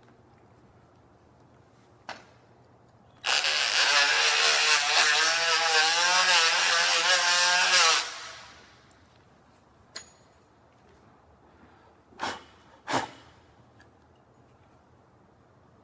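Oscillating multi-tool running for about five seconds with its blade cutting down into a thin glued-down hardwood floor plank, its pitch wavering as it works, then winding down. A few short knocks before and after as the tool is handled and set against the floor.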